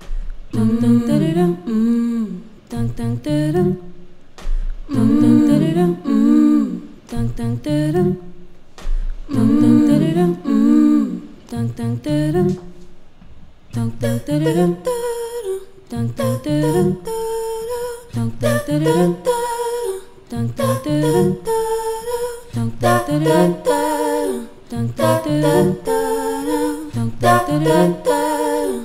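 A woman's voice layered over itself in an a cappella vocal loop, built on a Boss RC-300 loop station, with wordless parts repeating a short phrase about every two seconds. About halfway through, more vocal layers come in and the sound thickens.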